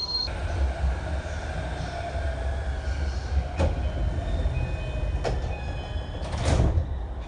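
Sliding passenger doors of a JR E233-5000 series commuter train working, over the train's steady low rumble. There are two sharp clicks and then a louder thump near the end.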